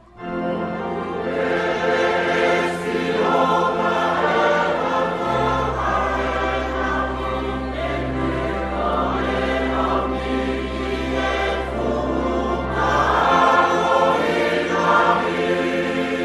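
Slow choral music: a choir singing long, sustained chords, with a deep held bass note from about five seconds in until about thirteen seconds.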